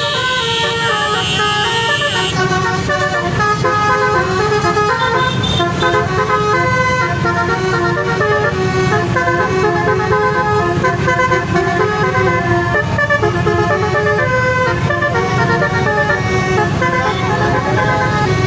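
A bus's basuri horn, the multi-trumpet 'telolet' air horn, playing a continuous tune note after note, over a steady low rumble.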